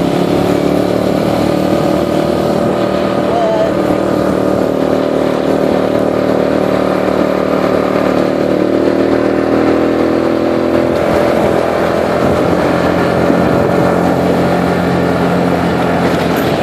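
ATV engine running steadily while riding along a trail, its note shifting slightly about eleven seconds in.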